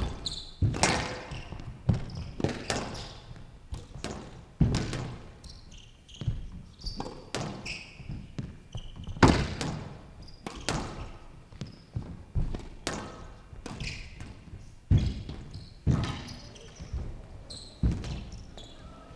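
Squash rally on a glass show court: the ball cracks off the rackets and walls in sharp strikes about once a second, echoing in a large hall, with short high shoe squeaks on the court floor between shots.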